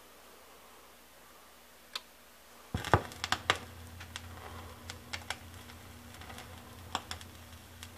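Elac Miracord 50H II tonearm setting its stylus down on a spinning record: a faint click about two seconds in, a thump as the stylus lands just before three seconds, then scattered crackles and pops from the lead-in groove over a low steady hum through the speakers.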